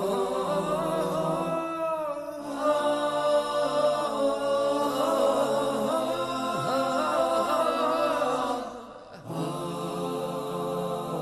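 Closing theme music: a chanted vocal melody with long, wavering held notes over a steady low tone. It drops away briefly about nine seconds in, then resumes.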